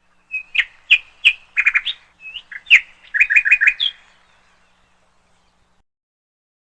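A bird chirping: a series of sharp, quick tweets, some single and some in fast runs, lasting about four seconds and then stopping.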